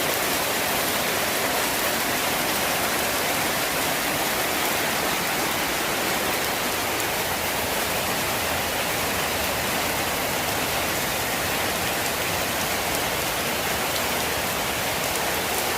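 Steady rain falling and pattering on surfaces, a dense, even hiss with no let-up.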